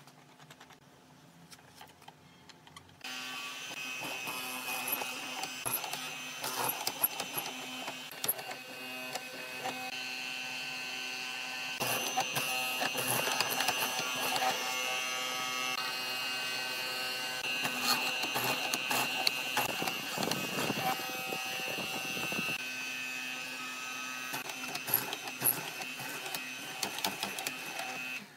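Hollow-chisel mortiser switching on about three seconds in and running with a steady motor hum and whine, while its square chisel and auger cut into a wooden beam with irregular crunching and knocks. It shuts off suddenly near the end.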